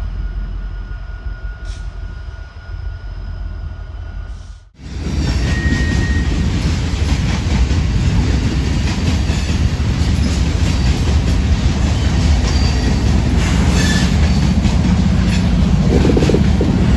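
Freight trains: first a low diesel rumble from BNSF locomotives approaching. After a cut about five seconds in, loaded hopper cars roll past close by with a dense clattering of wheels on rail and a couple of short wheel squeals. Near the end the drone of a Union Pacific diesel locomotive's engine swells as it draws alongside.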